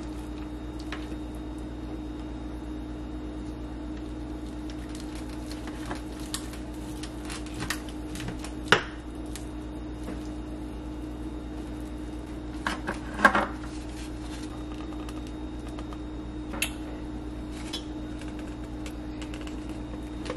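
A utensil cuts into and scrapes a meatloaf in a disposable aluminium foil pan, and a slice is served onto a paper plate. Scattered sharp clinks and scrapes, the loudest about 9 and 13 seconds in, sound over a steady low appliance hum.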